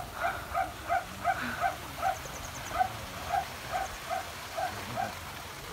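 A dog barking over and over at an even pace, about three short barks a second, stopping shortly before the end.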